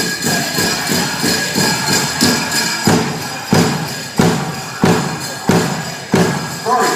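Pow wow drum group drumming for the chicken dance, with the jingle of dancers' bells over it. About three seconds in the beat turns to heavy, evenly spaced strokes about every two-thirds of a second.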